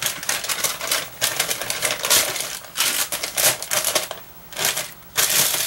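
Crackling and rustling of the backing sheet from clear laminating paper being handled, a dense run of small crackles that drops off briefly about four seconds in.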